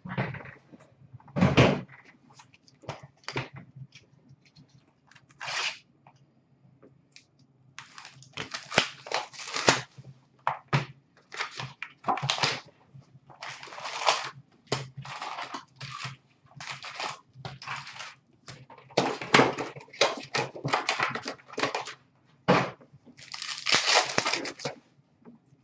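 Packs of 2019-20 Upper Deck hockey cards being torn open and handled: irregular runs of crinkling and tearing from the pack wrappers and card-box cardboard, with short pauses between.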